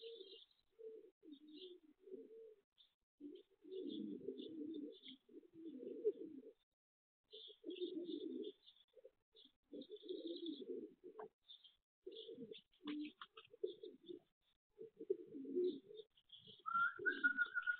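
Pigeons cooing in repeated low bursts, with small birds chirping higher up. A steady whistled tone comes in for about a second near the end.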